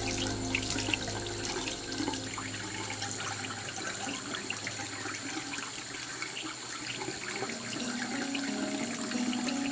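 Water running steadily with many small splashes and drips.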